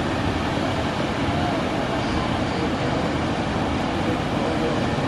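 Steady rushing roar of a large waterfall, an even wash of falling water with no break or rhythm.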